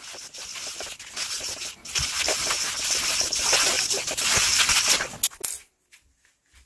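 Gloved hand rubbing and scraping dry bath-bomb powder (baking soda and citric acid) around a stainless steel bowl: a gritty rustling with small scrapes against the metal. It gets louder about two seconds in and stops near the end.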